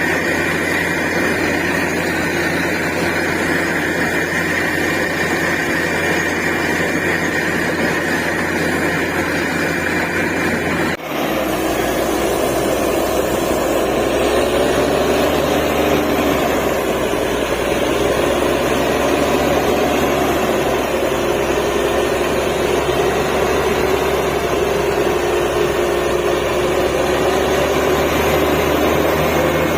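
DTH borewell drilling rig running: a loud, steady machine drone. About eleven seconds in it dips sharply for a moment, then carries on with its tone slightly changed.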